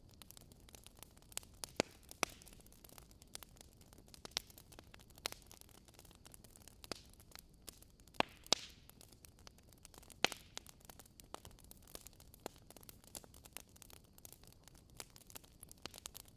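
Wood fire crackling in a fireplace: irregular sharp pops and snaps over a steady soft hiss.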